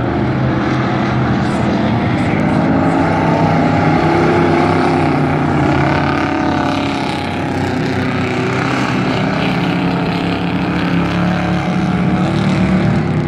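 Dirt-track race trucks' engines running hard as the pack laps the oval, their pitch rising and falling as they go through the turns and down the straights.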